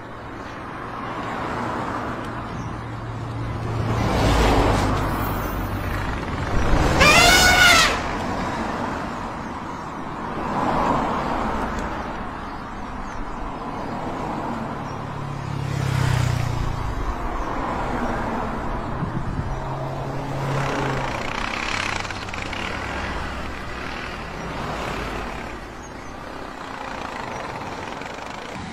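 A vehicle engine running with a steady low hum, over a haze of outdoor noise. About seven seconds in there is one loud, brassy, pitched call that rises and falls.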